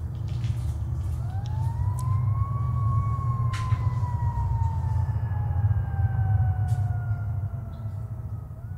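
A single siren-like wail rises in pitch over about a second and a half, then slowly sinks over several seconds and stops near the end. It sounds over a steady low rumble, with a sharp click about three and a half seconds in.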